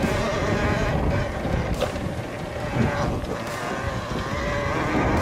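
Talaria Sting electric dirt bike riding along a dirt trail: a steady electric motor whine over rumbling tyre and wind noise, with a couple of sharp knocks from the bike going over bumps.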